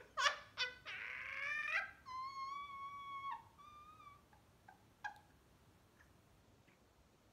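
A woman laughing hard, the laughs rising into one long, steady high-pitched squeal and a shorter second one. After that comes a single soft tap.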